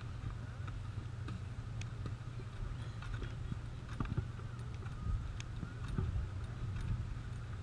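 Skis sliding and scraping over packed snow, with scattered clicks and knocks from the skis and poles, under a steady low rumble of wind buffeting the camera's microphone.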